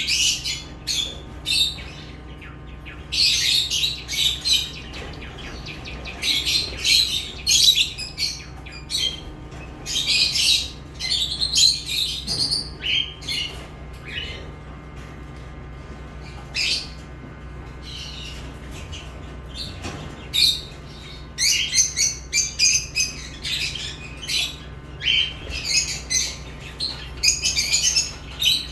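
Pet lovebirds chirping and squawking: rapid, shrill calls in irregular bursts, some overlapping, with short gaps between.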